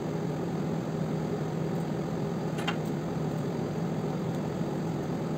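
Steady background hum and hiss, with one faint click about halfway through.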